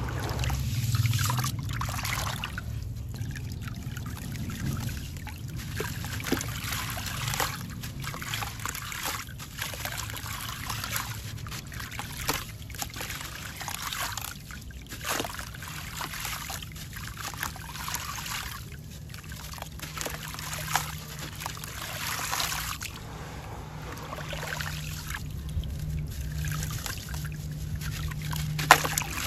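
Muddy water sloshing in a plastic tub as hands stir it, then wet sand crumbled from a soaked sand-cement block trickling and splashing into the water in many small irregular patters.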